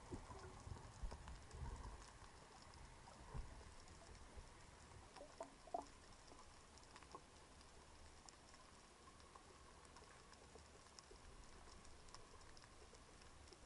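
Faint underwater ambience picked up by a camera in its housing: a steady fine crackling and ticking, with a low rumble of moving water over the first two seconds and a few sharper clicks about five to six seconds in.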